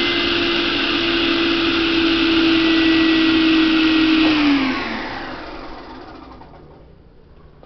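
Oliver 88D 16-inch table saw running steadily at full speed, then switched off about four seconds in, its motor and blade winding down with a falling pitch and fading away.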